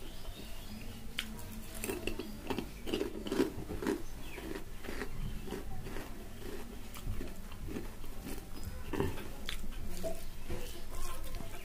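A person chewing a mouthful of rice and fish curry eaten by hand: wet chewing and lip smacks with short, irregular clicks and crunches, busiest a few seconds in.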